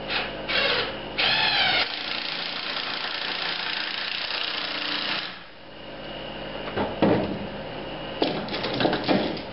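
Cordless drill driving a screw into a wooden framing header: two short bursts, then about three seconds of steady running that stops abruptly. A few knocks follow as the tool and wood are handled.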